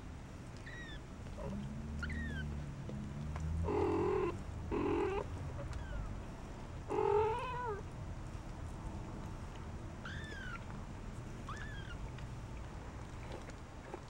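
Persian cat and four-week-old kittens: three short meows about four, five and seven seconds in, with thin high falling squeaks in between, over a low purr.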